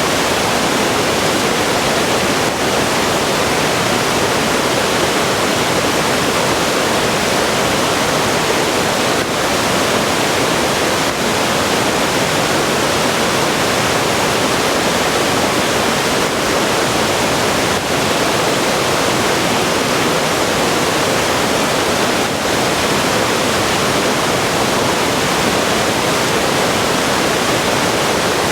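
Small river waterfall rushing steadily, an even, loud roar of falling and flowing water.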